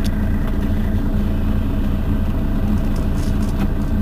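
Mercedes-Benz Citaro facelift city bus idling at a standstill: a steady, even engine hum.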